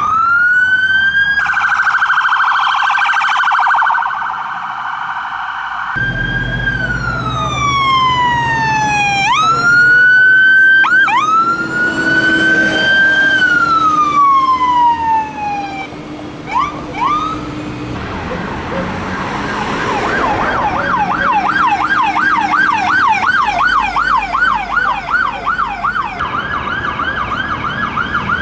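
Fire engine sirens: long wails that climb and slide slowly down, a few short whoops, then from about two-thirds of the way through a fast yelp. A heavy engine rumbles beneath.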